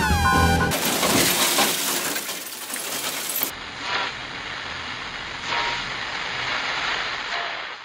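Television static hiss used as a transition sound effect, bright and crackling at first, duller after a few seconds, then fading out near the end.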